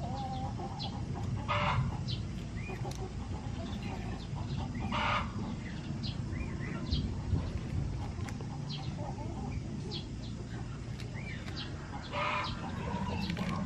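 Chickens clucking, with three louder calls about two, five and twelve seconds in, over many short high chirps from small birds.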